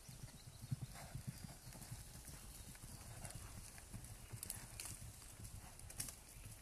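Hereford cattle trotting and running over soft pasture ground, their hooves making an irregular patter of low thuds, with a few sharp cracks near the end.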